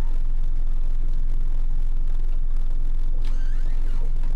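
Boat's outboard engine running steadily at low speed, a constant low hum. A faint brief high chirp comes about three seconds in.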